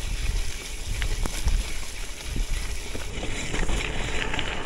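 Wind rumbling on the microphone of a bicycle moving over gravel, with tyre noise and a few light clicks and rattles.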